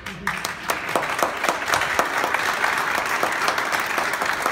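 Audience applause with many hands clapping. It builds up over the first second and then holds steady.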